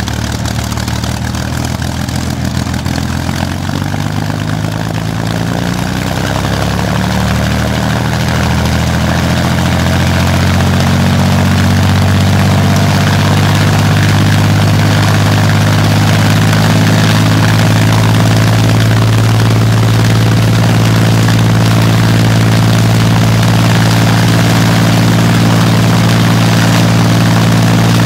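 Rolls-Royce Merlin V12 aero engine running on a trailer-mounted stand with its propeller turning. Its note climbs over the first several seconds as the revs come up, then holds steady at the higher, louder speed.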